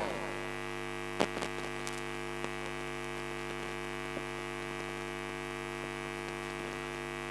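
Steady electrical mains hum from the stage's amplified sound system, a buzz of many evenly spaced tones, with a short knock about a second in.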